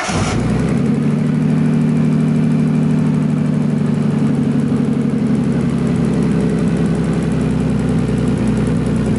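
Nissan Skyline R32's RB26DETT straight-six engine idling steadily while it warms up toward running temperature.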